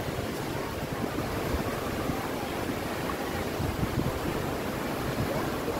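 Wind buffeting the microphone in a steady low rumble, with surf washing on the beach behind it.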